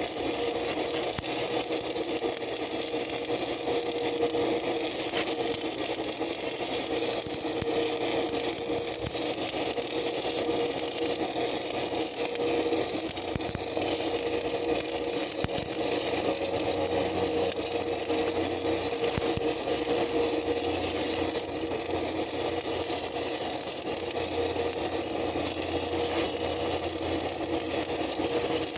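Stick welding arc crackling and hissing steadily, laying a bead during the repair of a cracked backhoe arm, with an engine running steadily underneath.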